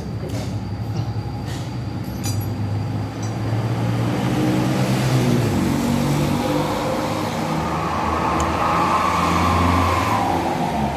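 An engine running and being revved, its pitch climbing in the second half and holding high until near the end. A few light metallic clicks in the first seconds.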